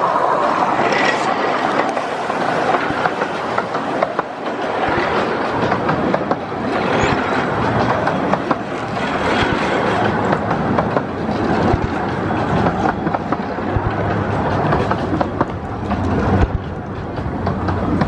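A 15-inch gauge miniature steam locomotive runs close past, followed by its train of coaches rolling by with a continuous rattle and clicking of wheels on the rails.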